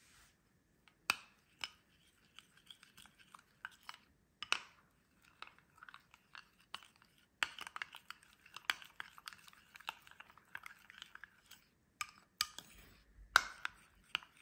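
A metal spoon stirring a thick mix of Greek yogurt, melted milk chocolate and coffee in a small ceramic bowl, with irregular clinks and scrapes of the spoon against the bowl.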